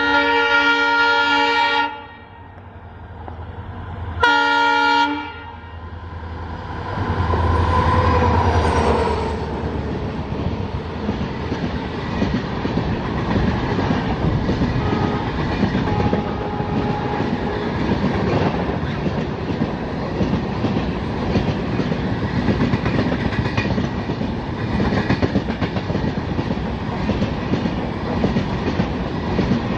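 WDP-4D diesel locomotive's horn sounding two blasts, the first about two seconds long and the second shorter about four seconds in, then the locomotive's EMD two-stroke diesel engine rumbling loudly as it passes at speed. After that the passenger coaches run past with a steady rattle and clickety-clack of wheels over rail joints.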